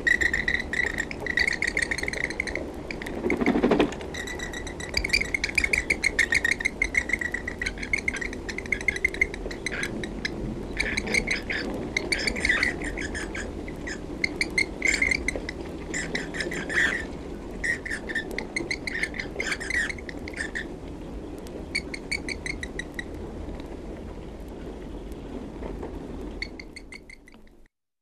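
Recorded wildlife call: trains of rapid, repeated high chirps, coming in bursts of a second or two with short gaps, over a steady background hiss. There is a single thump about three and a half seconds in, and the recording cuts off near the end.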